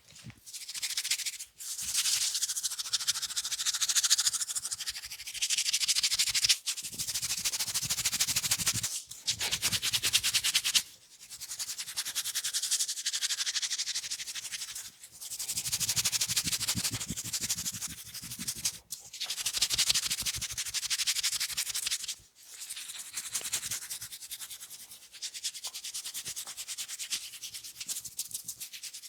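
Fingers rubbing and scratching over hair and ears close to the microphone during a head and ear massage. It is a dense, hissing scratching in spells of a few seconds, with brief breaks between them.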